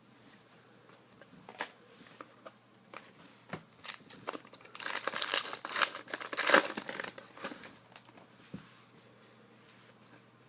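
Foil trading-card pack wrapper crinkling as it is torn open. A few light ticks of card handling come first, then about four seconds in the crinkling runs for around three seconds.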